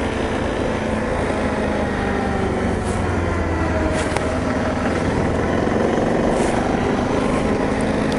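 BMW G 650 GS Sertao motorcycle's single-cylinder engine running steadily while riding, with road noise.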